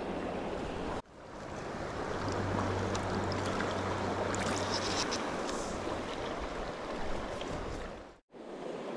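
Shallow river water rushing over stones close to the microphone, with a few small splashes around the middle. The sound drops out abruptly about a second in and again briefly near the end.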